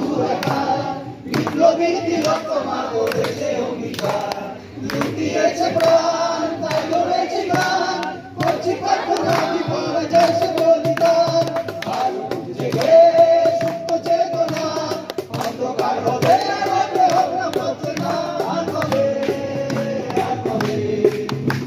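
A crowd singing a song together in long held notes, led by a singer on a microphone through a portable loudspeaker, with hand-played percussion keeping the beat.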